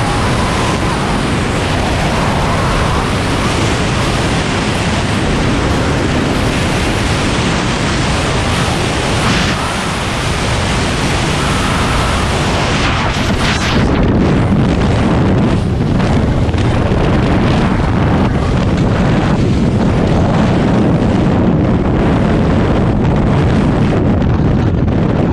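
Freefall wind rushing over a skydiver's helmet-mounted camera, a loud steady roar of air. About halfway through the rush turns deeper and duller.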